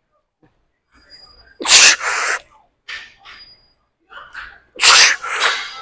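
A weightlifter breathing forcefully while pressing a heavy barbell on the bench: two loud, hissing exhales about a second and a half and five seconds in, with shorter breaths between them.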